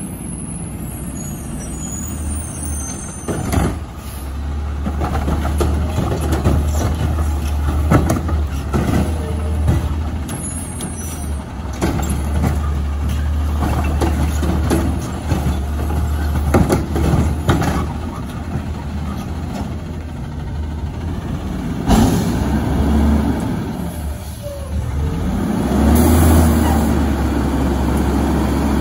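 Front-loading garbage truck with a Curotto-Can cart grabber: its diesel engine runs steadily, with sharp air-brake hisses. Near the end the engine revs up as the hydraulic forks lift the cart over the cab.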